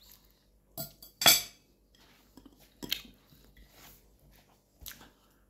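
Eating sounds at a soup bowl: a few short sharp clicks and clinks, two close together about a second in being the loudest, another near three seconds and one near the end, with quiet chewing between.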